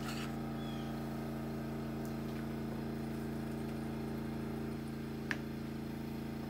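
A small electric motor running with a steady hum, with a single light click about five seconds in.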